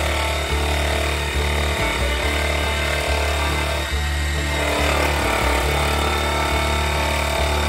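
Handheld rotary tool mounted in a drill-press stand, its motor running steadily while the bit cuts into a zebrawood block.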